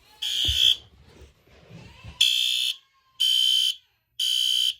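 SpectrAlert Advance fire alarm horn sounding in the temporal-3 evacuation pattern: half-second blasts of a harsh, high horn tone, three at a time a second apart, then a pause of about a second and a half. Some low handling noise sits in the pause after the first blast.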